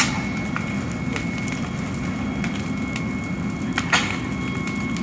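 Fire burning at an encampment: a steady low rumble with scattered crackles and pops, the loudest snap about four seconds in, over a thin steady high tone.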